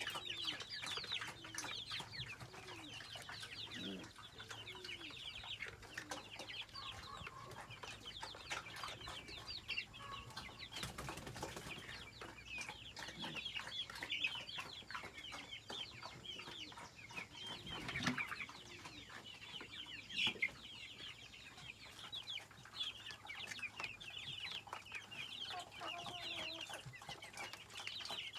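A flock of chickens clucking, with a dense chatter of many short high calls and lower clucks scattered throughout, and a few brief knocks.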